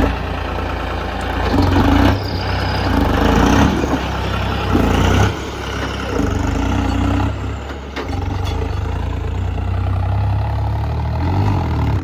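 Tractor engine running, its sound swelling and easing several times.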